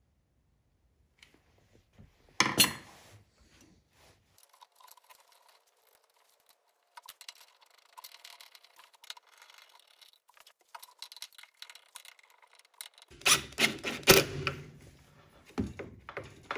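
Small clicks, rubs and knocks of hand work on electrical wiring: terminals being crimped onto wire ends, grounds fastened and a wall switch fitted into its box. There is a sharp knock about two and a half seconds in, light scattered clicking through the middle, and a run of louder knocks near the end.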